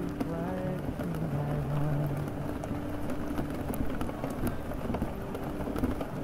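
A layered rain-and-city ambience: steady rain and passing traffic, with muffled 1990s pop music underneath whose low notes step up and down in the first couple of seconds. Faint scattered clicks sit on top.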